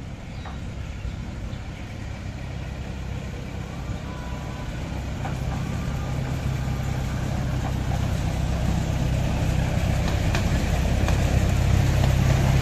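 An engine running with a steady low rumble that grows gradually louder.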